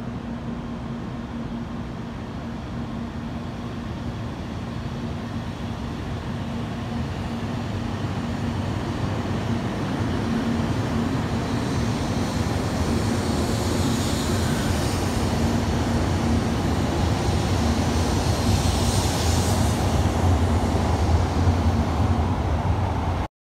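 JR Kyushu 800 series Shinkansen pulling out of the platform and accelerating past, its running noise building steadily louder. The sound cuts off suddenly near the end.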